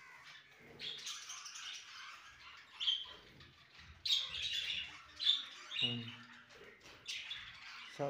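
Budgerigars chirping, a steady run of short high chirps with louder bursts about three, four and five seconds in.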